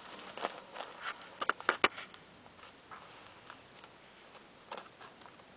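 Scattered small crunches and clicks of gravel under a puppy walking and settling on it, with a quick cluster of louder crunches about one and a half seconds in.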